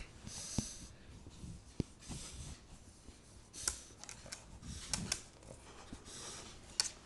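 A small dog sniffing at a biscuit in short, hissy breaths, with a few light clicks and knocks scattered among the sniffs.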